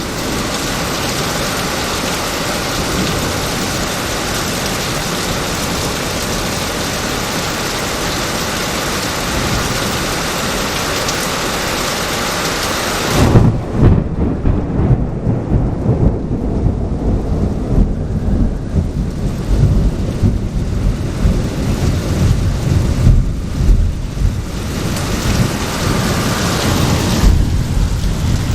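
Tropical-storm downpour hissing steadily. About halfway through a thunderclap breaks and rolls into a long, uneven low rumble while the rain's hiss fades back. Near the end the heavy rain hiss picks up again.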